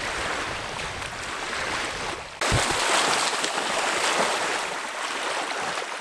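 Small lake waves lapping on a sandy shore. About two and a half seconds in the sound jumps louder, to a steadier rush of water with a dog splashing as it wades through the shallows.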